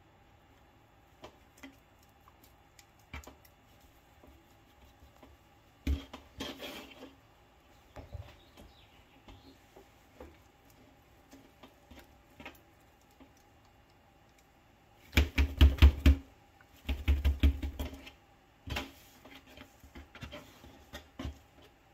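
Stuffed sausage being pinched and twisted into links on a plastic table: scattered soft knocks and rubs, then two runs of quick taps a little past the middle as a link is spun around and around against the tabletop.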